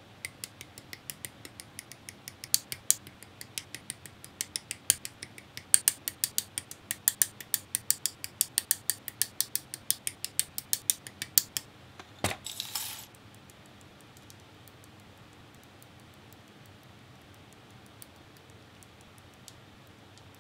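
Hobby nippers snipping plastic model-kit parts off their runners: a long run of sharp clicks, about four a second. About twelve seconds in there is one loud knock and a short rattle, then only two faint snips near the end.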